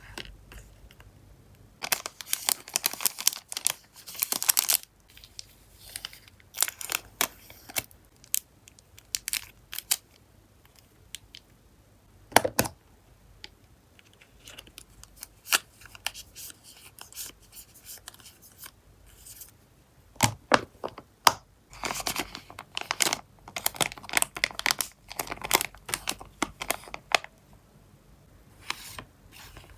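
Photocard packing by hand: plastic sleeves and packing materials crinkling and rustling in irregular bursts, with sharp clicks and short rasping tears between quieter pauses.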